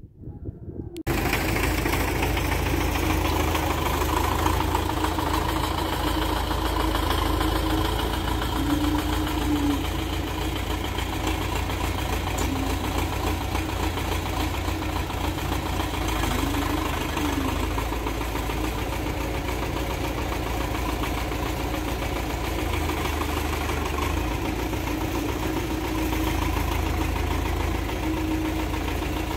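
MTZ-82 tractor's four-cylinder diesel engine running steadily, coming in abruptly about a second in.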